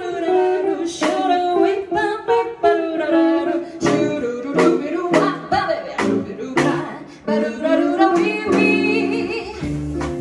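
Small acoustic jazz combo playing live: archtop guitar, upright double bass and a drum kit, with a voice singing the melody. The drum and cymbal strokes keep a regular beat, and the bass notes come through more strongly near the end.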